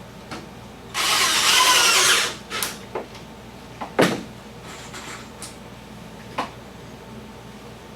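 Power drill driving a screw into the wood in one burst of a little over a second, its motor whine rising and falling, followed by several short knocks and clicks.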